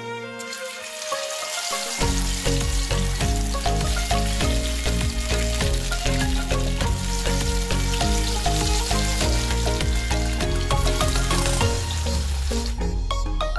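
Chili-coated tapioca (cassava) slices deep-frying in hot oil in a stainless steel pan: a loud, steady sizzle of bubbling oil that starts about half a second in as the slices go in and stops shortly before the end.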